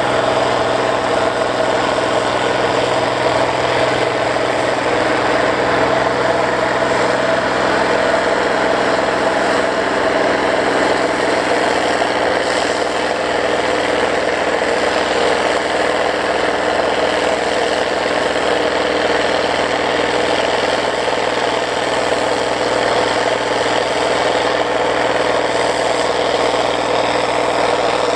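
Allis-Chalmers 7580 four-wheel-drive tractor's turbocharged six-cylinder diesel pulling hard under load with a multi-bottom moldboard plow. The engine holds a steady pitch and level throughout.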